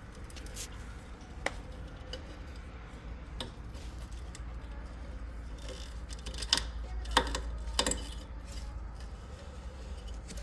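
Scattered light clicks and metallic taps of hand work on a washing machine as its drive belt is fitted, a few clustered together about six to eight seconds in, over a steady low hum.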